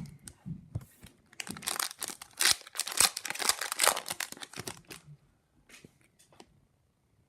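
Hockey card pack wrapper being torn open and crinkled: a dense run of crackles for about five seconds, dying down to a few faint clicks near the end.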